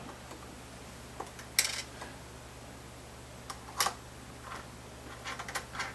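Light metallic clicks and clinks of guitar tuner hardware being handled and seated in a guitar headstock: a few scattered taps, with a denser run of small clicks near the end.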